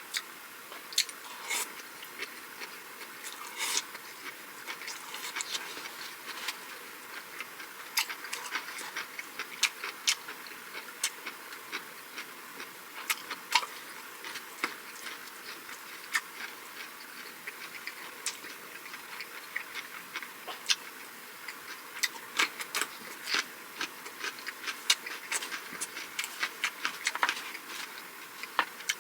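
Close-miked eating sounds: a person chewing soft pancakes and seasoned vegetables, with many irregular sharp wet mouth clicks and smacks, some coming in quick clusters.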